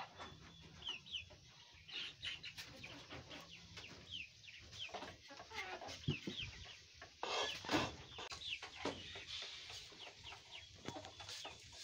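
Chickens clucking and calling, with many short, high chirps that fall in pitch, scattered throughout.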